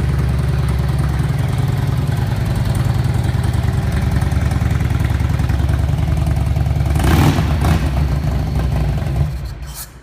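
Harley-Davidson V-twin motorcycle engine idling with a steady, uneven low pulse. Two brief louder bursts come about seven seconds in, and the sound fades away near the end.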